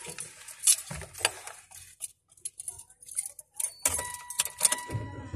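Small metallic clinks and rustling of keys or loose items being handled in a car's front seat. About four seconds in, a steady high electronic tone from the car starts, and a low rumble sets in just before the end.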